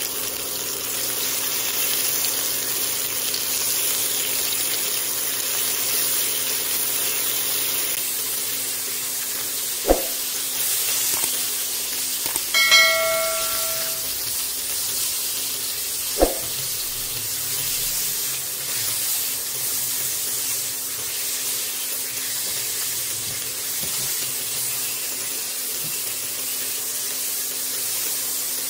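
Sliced sausage sizzling steadily in hot olive oil in a nonstick wok, with a silicone spatula stirring and knocking twice against the pan. A short bell-like chime sounds about halfway through.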